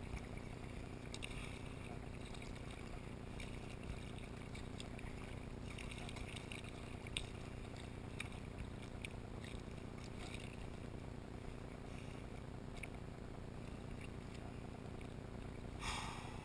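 Paddling a sea kayak: paddle blades dipping and small irregular splashes of water against the hull over a steady low rumble, with a louder splash near the end.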